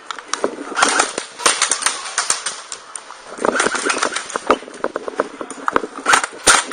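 Airsoft guns firing rapid, irregular strings of sharp shots in several clusters.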